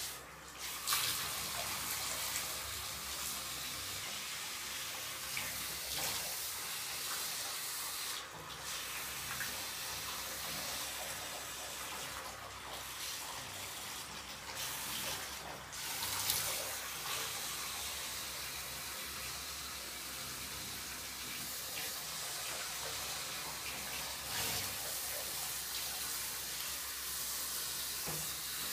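Water spraying steadily from a handheld shower head onto a cat's wet fur in a bathtub, a constant hiss that drops out briefly a few times.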